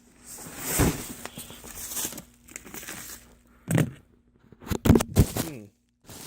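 Packaging being handled as a box is opened: paper or plastic crinkling and tearing, with a few sharp knocks. It cuts off suddenly near the end.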